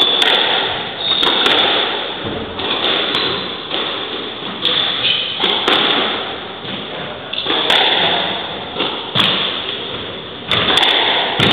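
Squash rally: the ball is struck by rackets and smacks off the court walls in a dozen or so sharp, irregularly spaced hits, roughly one a second, each with a short echo.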